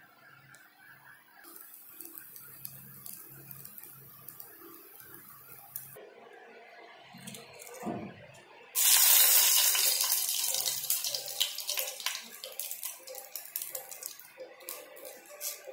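Hot oil in a frying pan bursts into a loud sizzle about nine seconds in as a dried red chilli goes in for tempering. The sizzle slowly fades, with small pops and crackles.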